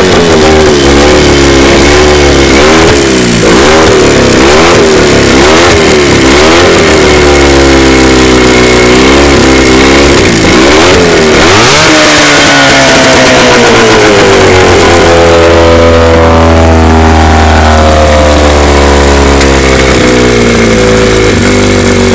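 Johnson 9.9 Seahorse two-stroke outboard motor running loud and close. Its speed rises and falls again and again for the first dozen seconds, then drops and settles to a steadier speed.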